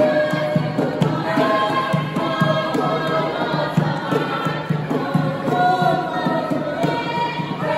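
A group of voices singing a chant-like song in chorus over a steady rhythmic beat.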